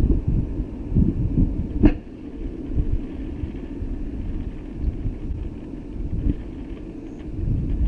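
Low, gusting wind rumble buffeting an outdoor microphone. It is heavier for the first two seconds, eases, then builds again near the end, with one sharp knock about two seconds in.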